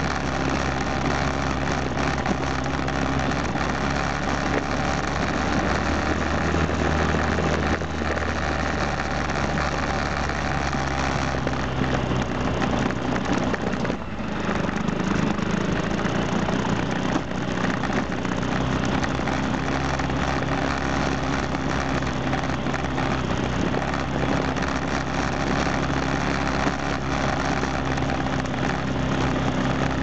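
Kawasaki KLX125's single-cylinder four-stroke engine running steadily as the trail bike climbs, with a brief dip in level and a shift in pitch about halfway through.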